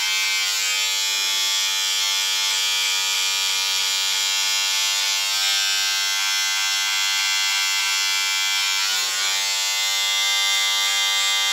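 Remington electric shaver running with a steady buzz as it is moved over short cropped hair at the front hairline; its tone roughens briefly a few times as it passes over the hair.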